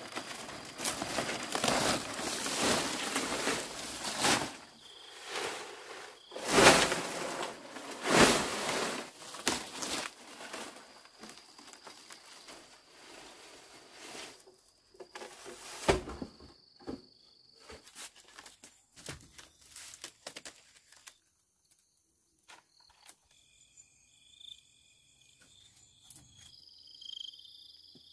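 Loud rustling noise with sharp knocks through the first half, thinning to scattered clicks; in the last several seconds insects chirp in steady high-pitched tones.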